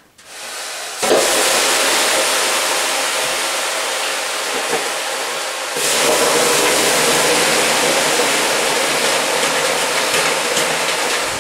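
Water ladled onto the hot rocks of a wood-fired sauna stove, hissing loudly as it flashes to steam. The hiss starts about a second in and swells again with a second ladleful just before the middle, running on steadily.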